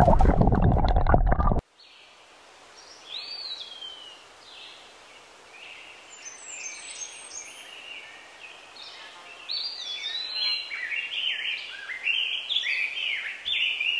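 Songbirds singing, with short chirps and slurred whistles that grow busier toward the end, over a faint steady outdoor hiss. They follow a loud burst of intro music that cuts off abruptly about a second and a half in.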